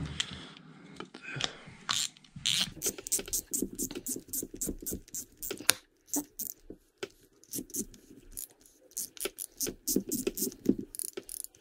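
Shimano Stradic FL 2500HG spinning reel's front drag knob being screwed back down onto the spool, giving a rapid run of small clicks, several a second, starting a couple of seconds in.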